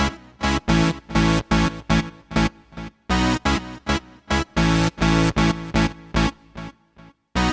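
Alesis Ion synthesizer playing a patch from a Nord Stage sound pack: short, rhythmic chord stabs, several a second, with a brief pause near the end.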